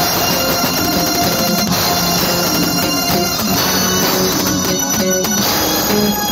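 Live rock band playing through a PA, with electric guitars and drums, heard from among the crowd.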